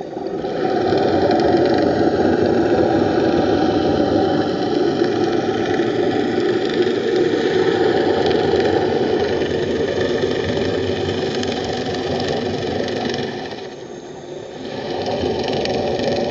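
Steady mechanical drone mixed with noise, picked up underwater, dipping briefly about fourteen seconds in and then coming back.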